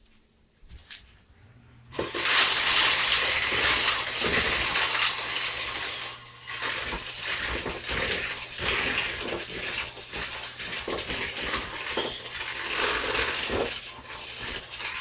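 Electric hand mixer switched on about two seconds in, its beaters churning chocolate-chip cookie dough in a mixing bowl, with a steady motor hum under the noise of the dough.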